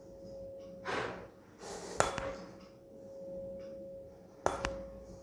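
A 512 Hz tuning fork struck with a rubber mallet, twice (about 2 seconds in and again near the end), ringing a steady pure tone over the mouth of a resonance-column tube. With the air column at 44 cm it is just off resonance, so the tone stays fairly quiet with no big boost.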